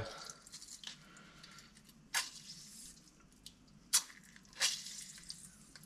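Half a lime squeezed by hand over a bowl of dressing: quiet squishing and dripping, with a few short sharp sounds about two and four seconds in.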